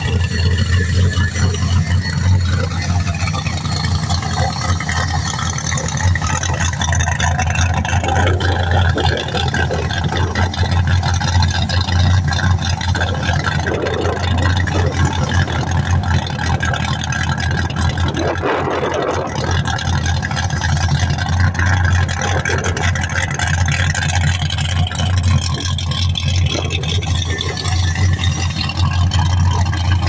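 Stock car's race engine idling loudly through its side-exit exhaust, a steady low drone.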